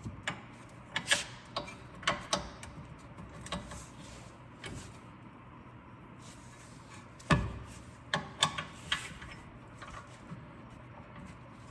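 Scattered clicks and knocks of tools and parts being handled as a car's front strut is lined up for its bottom bolt, with the loudest knock about seven seconds in.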